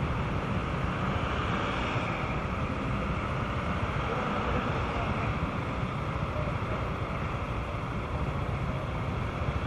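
Steady noise of road traffic on a wet road: cars passing with tyres hissing on wet asphalt over a low rumble.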